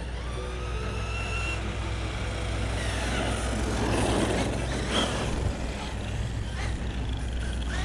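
Brushless electric motor of a Laegendary Thunder 1/10-scale RC truck running on a 2S battery: a whine that rises and falls in pitch as the truck speeds up and slows, with tyre noise on asphalt swelling to its loudest about four seconds in.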